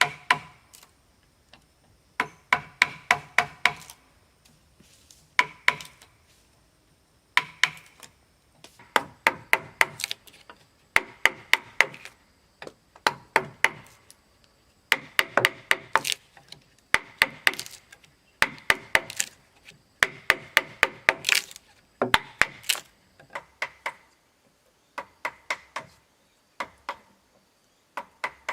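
Wood being struck over and over with a hand tool, in quick runs of several sharp, ringing blows every second or two, like chopping or hammering a timber.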